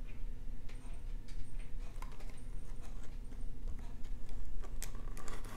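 Paperboard card box being opened by hand: scattered light clicks and taps as the cardboard flap is worked loose, with a sharper crackle near the end.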